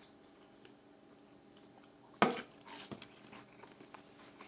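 Biting into a crispy breaded chicken ball: one sharp crunch about halfway through, then a few softer crunches of chewing.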